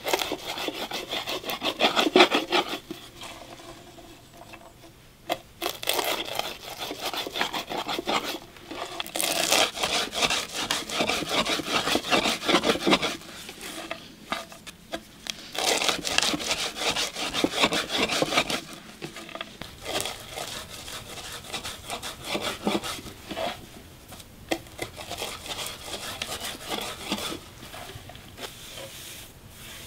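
Walnuts being ground by hand in an unglazed clay bowl: a dry, gritty rubbing and scraping of nut against clay in quick strokes. It comes in several bouts separated by short pauses.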